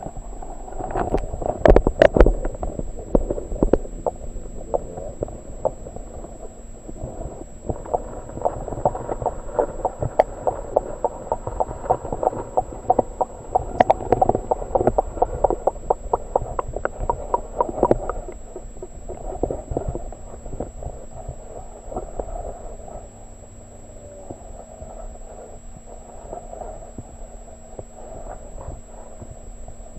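Muffled underwater sound of shallow river water heard through a submerged camera's waterproof housing: dull water movement with many small clicks and knocks, loudest about two seconds in and busy again through the middle, over a faint steady low hum.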